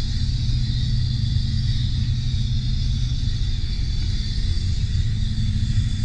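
Steady low drone of a John Deere tractor's diesel engine heard from inside the cab, with a constant hiss higher up.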